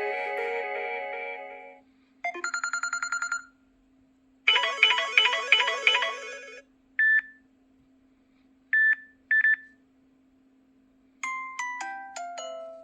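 Samsung Galaxy S7 preloaded ringtones playing one after another: a melodic tone fading out, a fast trilling ring, a louder rapidly pulsing ring, a single beep and then two beeps, and near the end a descending run of chime notes.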